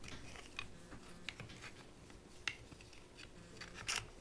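Faint, scattered small clicks and taps, roughly one a second, from hand work on the stuck timing-chain cover of a Ski-Doo V800 four-stroke engine.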